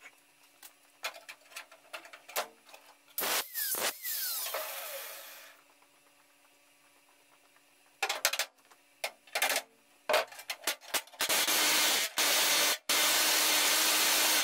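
Pneumatic air chisel hammering into steel sheet metal, cutting the top off a car's rear frame rail and spring shackle mount: a few short bursts, then a longer steady run near the end with two brief pauses. About three seconds in, a power tool runs for a moment and winds down.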